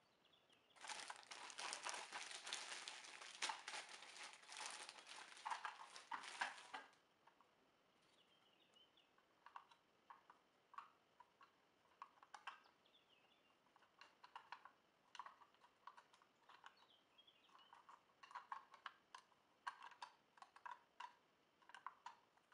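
Thin plastic bag crinkling as it is handled and opened for about six seconds, then scattered light clicks and taps of a clear plastic cage part being turned over in the hands.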